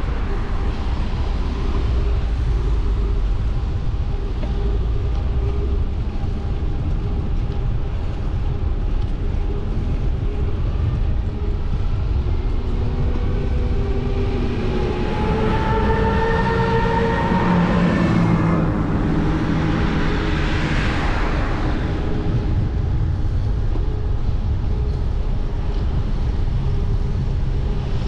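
Steady low rumble of wind and road noise on a moving bicycle, with a vehicle passing close by in the middle: its engine note falls in pitch as it goes past, loudest about twenty seconds in, then fades.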